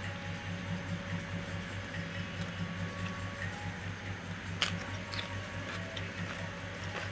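Close-up eating sounds: wet chewing and squishing of rice and curry mixed by hand, with a sharp crisp bite into a raw cucumber slice a little past halfway. A steady low hum runs underneath.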